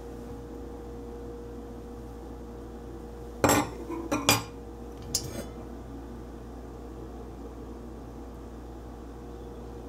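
Metal clanks from a stainless steel stovetop percolator being taken apart: its pump stem is pulled out and set down and the pot is handled. There are a few clanks about a second apart, starting a little after three seconds in, over a steady faint hum.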